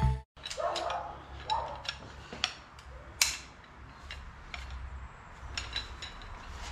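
Scattered light metallic clicks and taps from a breaker bar and socket on the cylinder head bolts of a Ford Intech straight-six, as the bolts are strained at and will not crack loose; a sharper click comes about three seconds in. A faint low hum runs underneath.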